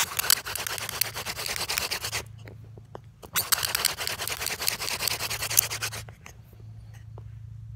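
Yucca hand-drill spindle spun between the palms and grinding in the notch of a yucca hearth board: two long runs of hissing, rubbing friction with a short break between, stopping about six seconds in. The drill is already smoking and is being worked under heavy downward pressure to build an ember.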